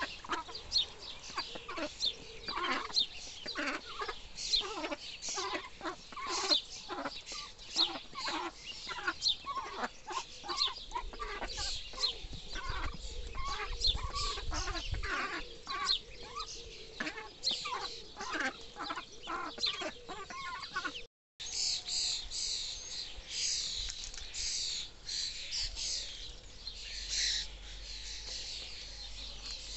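A brood of ducklings peeping continuously while feeding, mixed with lower, softer calls from the adult ducks. After a brief break about two-thirds through, only the ducklings' high peeping remains.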